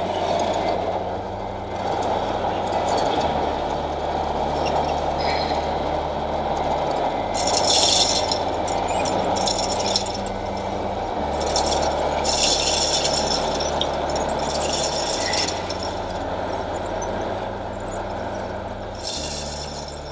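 Electronic sound module of a radio-controlled Komatsu bulldozer model playing a diesel engine running, its low note stepping up and down every few seconds as the dozer works. Bursts of hissing sound three times, about a third of the way in, about halfway, and near the end.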